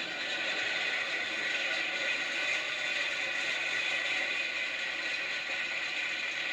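Studio audience applauding after a punchline, a dense steady clatter of clapping that cuts off sharply just before the dialogue resumes.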